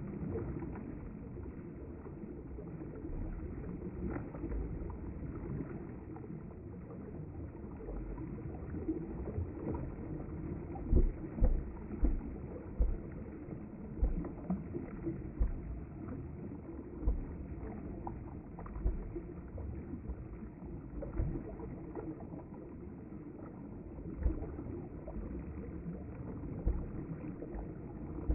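River water flowing past the bank, a steady low rushing with irregular low thumps and splashes, most of them from about eleven seconds in.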